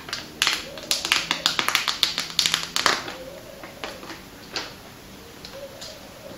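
Plastic shrink-wrap being torn and peeled off a new phone box: a dense run of crinkling crackles for about the first three seconds, then a few scattered rustles.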